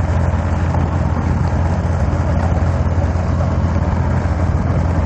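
Boat engine running steadily, a low even hum, heard from on deck with wind noise on the microphone.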